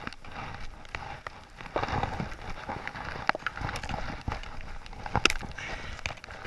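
Deep powder snow crunching and shuffling under a skier's gloves, boots and poles, with irregular knocks and clicks of ski gear and one sharp click a little past five seconds in.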